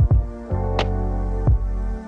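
Background music: sustained chords over a steady drum beat.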